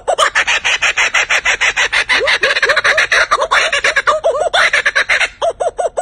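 Laughing kookaburra calling: rapid repeated notes, about seven a second, that swell into a loud, dense, raucous cackle and then ease back to plainer evenly spaced notes near the end.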